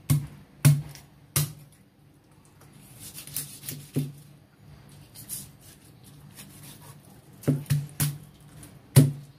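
Large kitchen knife chopping through raw fish onto a wooden cutting board: irregular sharp knocks of the blade hitting the board, three in the first second and a half, then scattered, with a quick cluster of strikes near the end.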